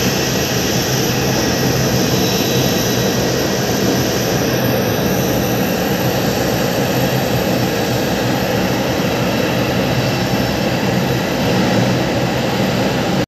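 Airliner engines running: a steady drone with a constant whine, holding level the whole time.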